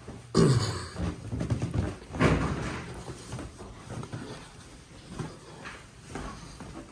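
Footsteps going down a carpeted staircase and onto a hard floor: irregular soft thumps and clicks, the heaviest about two seconds in. A short voice-like sound is heard about half a second in.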